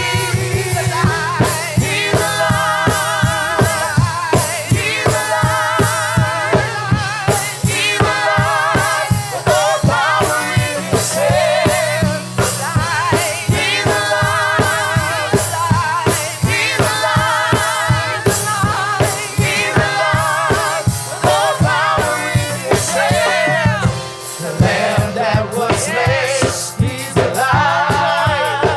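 Live gospel praise music: a choir and lead singers singing over a steady drum beat and band.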